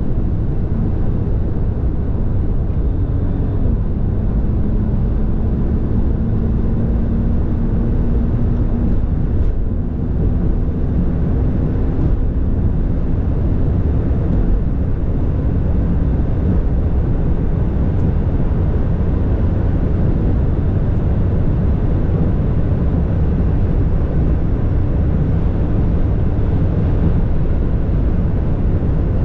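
Mercedes-Benz S65 AMG with its V12 biturbo running at sustained high speed: a loud, steady rush of wind and road noise with a faint engine drone underneath that slowly rises in pitch in the first half.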